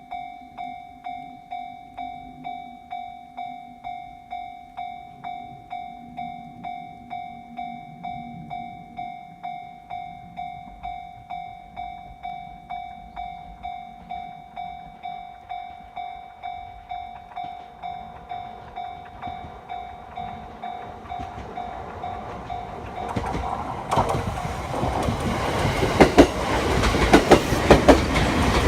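A Japanese level-crossing warning bell dings steadily, about one and a half strikes a second. About 23 seconds in, a local electric train on the Uchibo Line reaches the crossing and drowns out the bell, with a loud rush and its wheels clacking over the rail joints.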